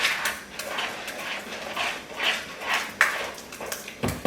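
A spoon stirring thick banana muffin batter in a mixing bowl, in rhythmic scraping strokes about two a second, with a few sharp knocks of the spoon against the bowl near the end.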